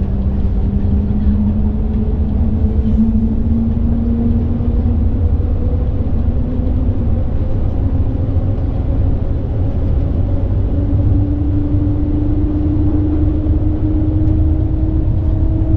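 Shanghai maglev train accelerating, heard inside the passenger cabin: a steady low rumble with a whine that slowly rises in pitch. A second, higher whine joins about eleven seconds in and also climbs.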